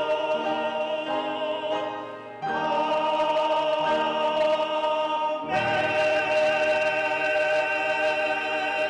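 Church choir singing the closing held chords of an anthem, with vibrato. The chord changes about two and a half seconds in and again about five and a half seconds in, where lower voices come in. The last chord is held.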